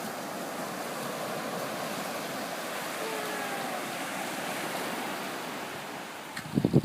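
Ocean surf washing steadily. Near the end, gusts of wind start buffeting the microphone.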